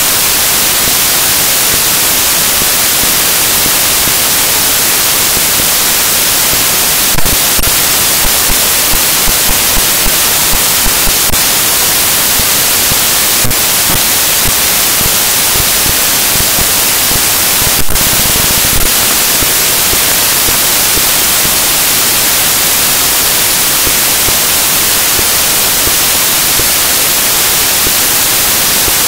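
Loud, steady hiss of static noise in the recording, strongest in the highs, with a handful of small clicks scattered through it.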